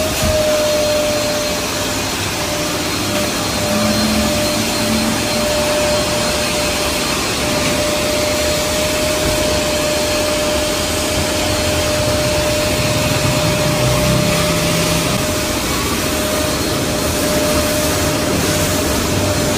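Car wash machinery running steadily: a motor's constant whine over loud rushing noise.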